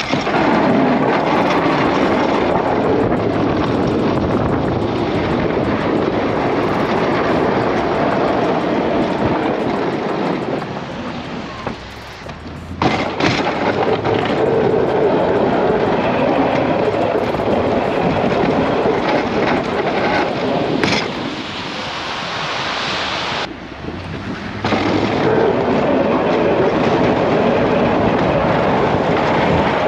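Pickup truck pushing heavy wet slush with a Sno Power F14 front plow blade: a loud, steady rough scraping and driving noise. It drops off briefly about twelve seconds in, and again for a few seconds a little past twenty seconds in, before picking back up.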